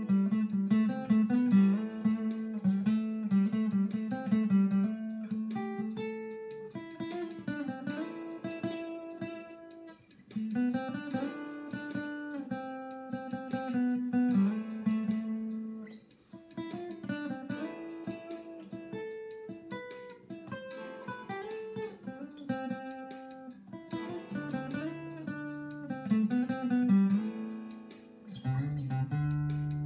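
Solo Ovation-style steel-string acoustic guitar played fingerstyle: a melodic passage of picked notes over ringing chords, with brief dips in loudness around six, ten and sixteen seconds in.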